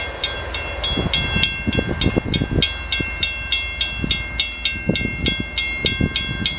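Railroad crossing bell ringing steadily at about three strokes a second while the crossing gates go up after a train has passed, with a few low thumps and some rumble underneath.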